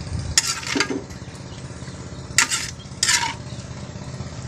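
A utensil scraping and clinking against a cooking pan of rice snail adobo as it is stirred, in about four short strokes with a faint ring after the later ones.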